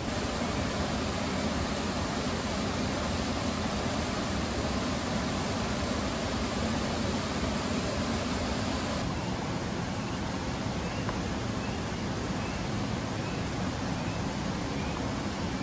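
Steady, even rushing of falling water, unbroken throughout, with a few faint short high chirps in the second half.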